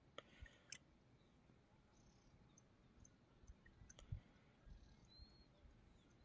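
Near silence: faint open-air ambience with a few scattered soft clicks and low thumps, and one short high chirp about five seconds in.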